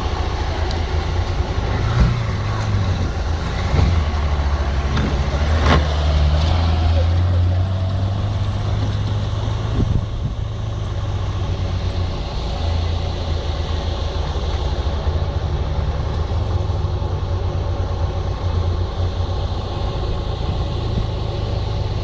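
Off-road Jeep's engine running with a deep, steady low rumble, with a few sharp knocks in the first several seconds.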